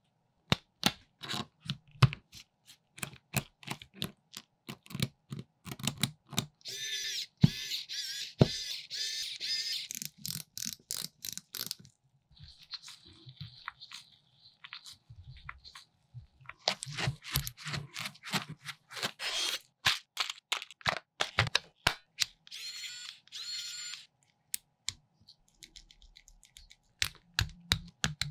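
Small metal parts of a Toyan V8 model engine clicking and tapping as they are handled and fitted together, with two longer stretches of rapid, high-pitched rasping from tool or part work.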